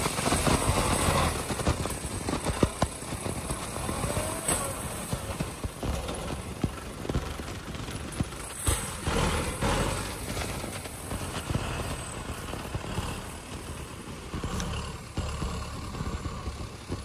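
Kubota M6040SU tractor's diesel engine working under load as its front dozer blade pushes soil and brush, with scattered short cracks and knocks over the engine. The engine is loudest in the first couple of seconds.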